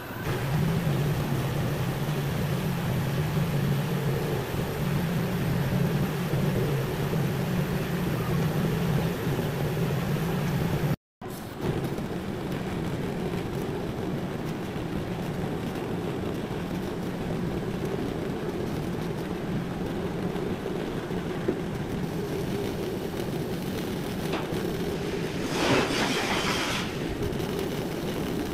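TIP TIG welding of 904 stainless steel under argon: a steady low buzzing hum from the arc and wire feed that starts just after the beginning, drops out briefly a third of the way in, and carries on with a short louder hiss near the end.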